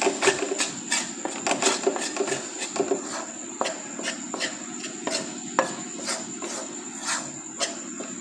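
A spoon stirs and scrapes flour through hot ghee in a metal pan, cooking a roux for white sauce, with irregular clicks and knocks of the spoon against the pan several times a second over a steady low hiss.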